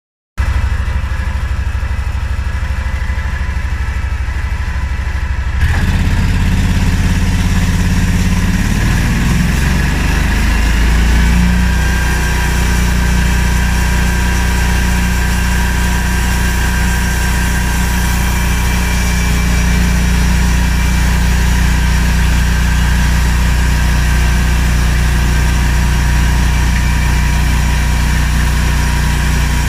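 Band sawmill running with a steady low engine-like note. About six seconds in, a second, brighter running sound starts suddenly. The low note then shifts over a few seconds before settling into a steady run.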